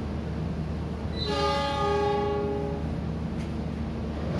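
Diesel locomotive horn sounding once, a steady chord-like blast of about a second and a half starting a little over a second in, over a steady low rumble.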